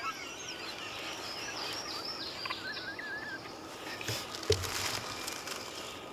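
Songbirds singing in the woods: thin, warbling chirps and trills, with a short thump about four and a half seconds in.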